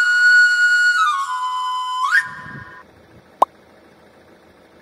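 Short electronic intro sting: a held tone with overtones that steps down in pitch, then sweeps quickly upward and stops about two seconds in. After it, only faint background noise with one sharp click.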